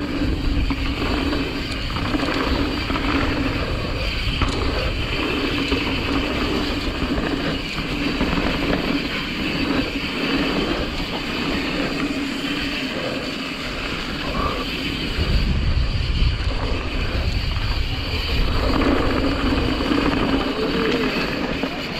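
Mountain bike riding down a dirt trail: continuous tyre noise on the dirt with constant small rattles and knocks from the bike, and wind over the camera's microphone, swelling louder in places.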